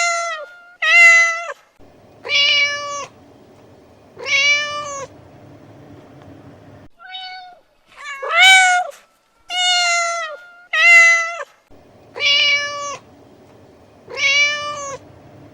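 A cat meowing repeatedly, about ten drawn-out meows that rise and fall in pitch, in a sequence that repeats itself every seven seconds or so.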